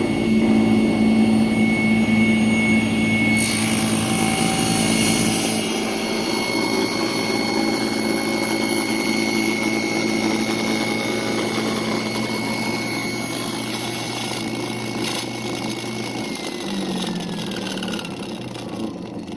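Electric power tool motor running with a steady whine and hum, a brighter hiss joining a few seconds in; about three-quarters through it is switched off and the whine falls in pitch as the motor winds down.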